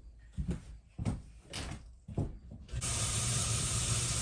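Four or five dull knocks about half a second apart, then a steady rushing noise with a low hum that starts abruptly near the end.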